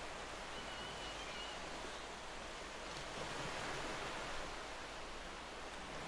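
Steady outdoor city ambience: an even wash of distant noise, with a faint high chirp about a second in.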